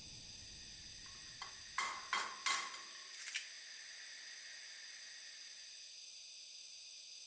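An egg being cracked on the rim of a metal saucepan: a few sharp taps, three loud ones close together about two seconds in, then a fainter click as the shell comes apart.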